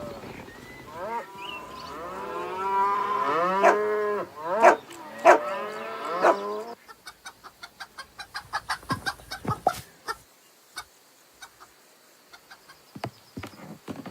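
A flock of chickens clucking, many arching calls overlapping, with a few sharper squawks. About seven seconds in the calls give way to a quick run of short ticks, about four a second, that thins out into scattered ticks.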